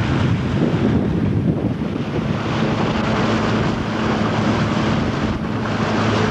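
Small boat's motor running steadily under way, a low even hum, with heavy wind noise on the microphone.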